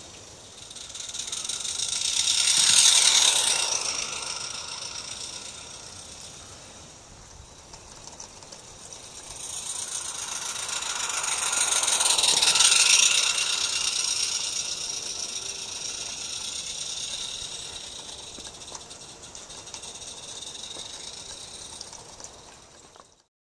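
Roundhouse Katie live-steam garden-railway locomotive running on the track, its rapid steam exhaust beats and hiss rattling like a ratchet. The sound swells as the engine nears and fades as it moves away, once about three seconds in and again around twelve seconds in. It cuts off suddenly just before the end.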